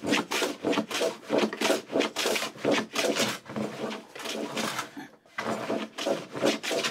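Candle wax rubbed quickly back and forth on wood, about three short scraping strokes a second with a brief pause a little after five seconds, waxing the work to ease the friction of a moving fillister plane.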